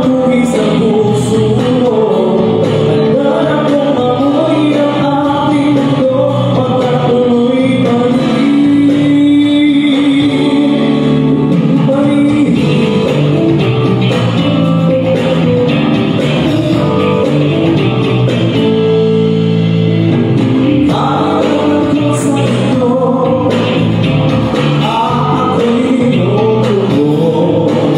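A man singing into a microphone, amplified through the stage speakers over instrumental backing music.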